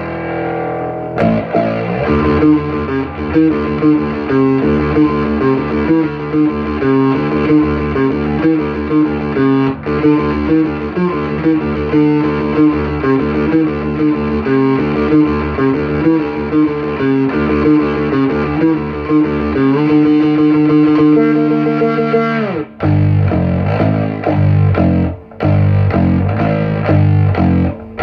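Fretless bass guitar played through amplifiers and recorded on a phone microphone: a repeating riff over a steady low pulse. About twenty seconds in, a held note slides down in pitch and stops, and a new riff starts.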